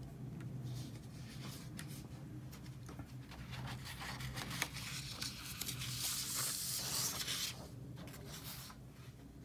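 Sheets of paper rustling and sliding as one sheet is laid over another, loudest about six to seven seconds in.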